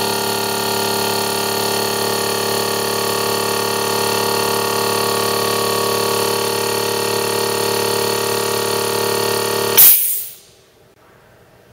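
TWO STAR CT-15A 12 V DC piston air compressor running steadily under load as it pumps its tank up to about 8 kg/cm². Near the end it cuts out: a short, sharp hiss of air released as the pressure switch stops the motor at full pressure, then it goes quiet.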